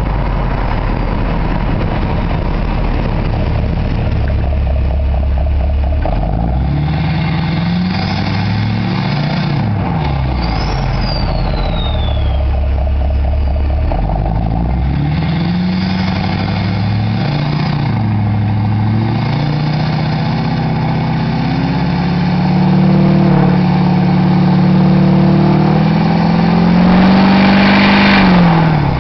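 2004.5 LLY Duramax 6.6 L V8 turbo-diesel with a 4-inch straight-pipe exhaust, driving: the engine pitch climbs and drops several times as it accelerates and eases off. It is loudest on a last pull near the end, which falls away abruptly. A high turbo whistle falls in pitch about eleven seconds in.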